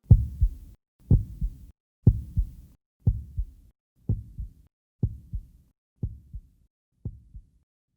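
Heartbeat sound effect: a lub-dub double thud about once a second, fading steadily.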